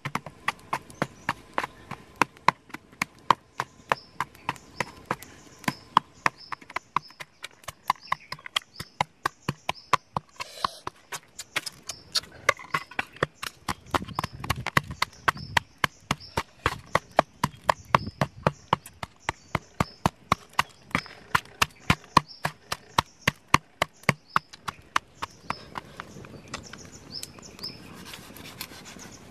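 Wooden pestle pounding chili peppers and garlic on a metal tray, crushing them for a spicy dipping sauce: a steady run of sharp knocks, about three a second, that stops about 25 seconds in.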